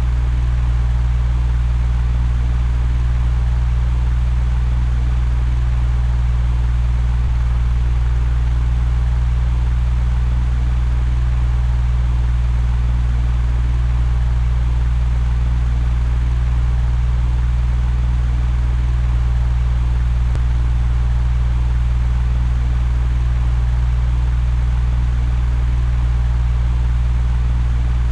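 Electric fan running steadily: a deep, even motor hum under a soft rush of air.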